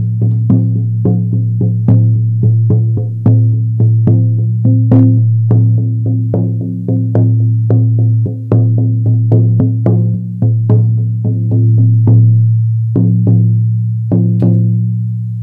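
18-inch buffalo-skin frame drum on an ash frame, struck with a firm beater in a steady, even beat, each stroke leaving a deep ring that carries under the next. The strokes stop near the end and the ring fades.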